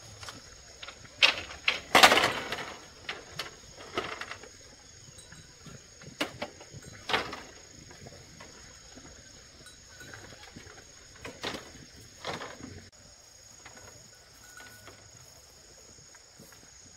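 Scattered sharp knocks and short rustling noises, the loudest and longest about two seconds in, over a steady high-pitched drone of insects.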